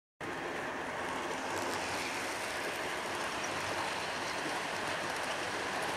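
HO-scale model train running past on its track: a steady, even rush of metal wheels rolling on the rails, with faint light clicks.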